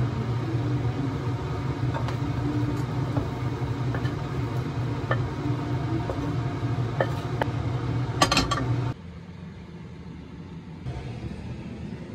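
A steady low hum with scattered light clinks of a utensil against the wok, and a short clatter of several clinks about eight seconds in. Then, about nine seconds in, the sound drops suddenly to a quieter hum.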